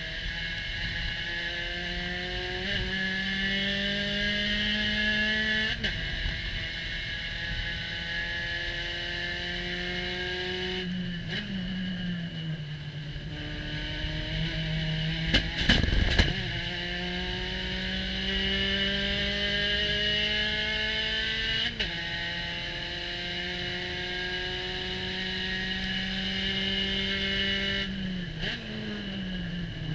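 Spec Racer Ford SRF3 race car engine under hard acceleration, heard from the open cockpit. Its pitch climbs steadily and steps down at each gear change, several times over. About halfway through there is a brief loud clatter, and near the end the engine note falls as the car brakes and downshifts.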